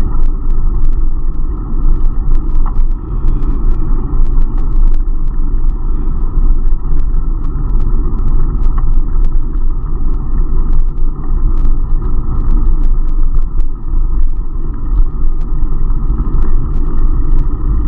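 Wind buffeting and road rumble on the microphone of an action camera riding on a moving bicycle: a loud, steady rumble with scattered light clicks.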